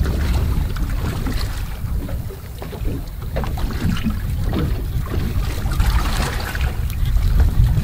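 Wind buffeting the microphone on a small boat at sea, a steady low rumble, with water lapping against the hull and a few small knocks and splashes.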